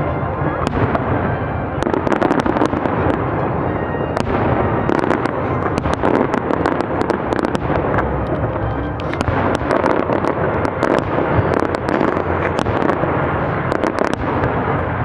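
Fireworks display going off without a break: a dense, continuous rumble of bursts with many sharp crackling cracks on top.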